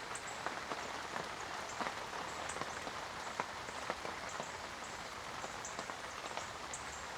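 Steady rain falling, with individual drops heard as scattered short ticks over an even hiss.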